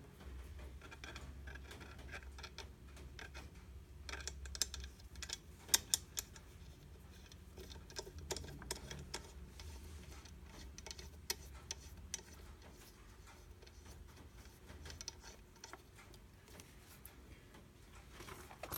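Small metal clicks and taps as snap-setting dies and rivet parts are handled and placed, with a few sharper clicks about six seconds in. A faint steady low hum lies underneath.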